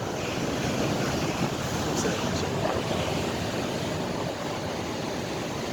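Sea surf washing ashore with steady wind noise on the microphone.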